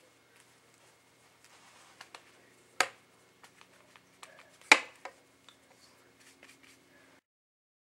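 Small clicks and taps of makeup items being handled, with two sharper clicks about three and five seconds in, over a faint steady hum. The sound cuts off suddenly near the end.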